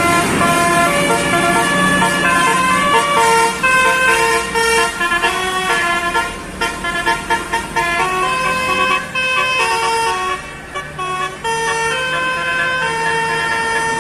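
A bus's basuri telolet horn, a multi-trumpet musical horn, playing a melody of held notes that step from pitch to pitch, over a low engine hum. The melody breaks into short choppy bursts partway through.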